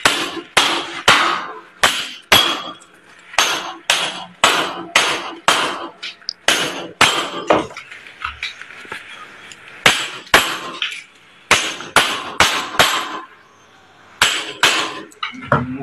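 Hammer blows on a steel window frame: sharp strikes, often two or three in quick succession, broken by short pauses.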